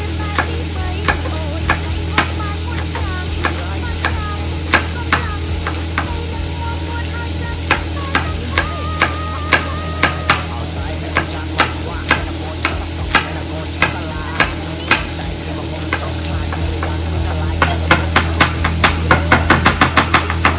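Chef's knife chopping garlic on a plastic cutting board: single knocks about once a second, quickening near the end into rapid chopping. Under it, the steady sizzle of baby carrots sautéing in a pan.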